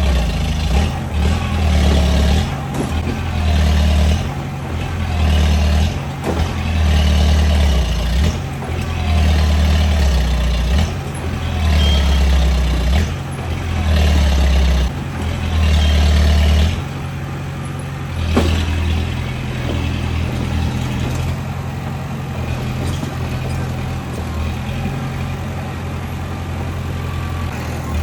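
Bulldozer's diesel engine working, its heavy low sound swelling and easing in about nine regular surges over the first 17 seconds, then running more steadily. A single sharp knock sounds about 18 seconds in.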